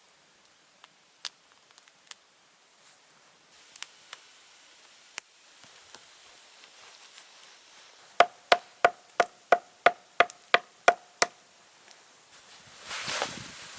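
About ten quick, evenly spaced strikes on wood, about three a second, each with a short ringing knock, as from a hand tool chopping or hammering wood. A few scattered clicks come before them, and a rustling crunch follows near the end.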